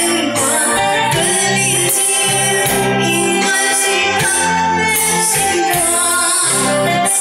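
A live Mandarin pop song played over a concert PA system: a band accompanying a singer's voice, loud and steady.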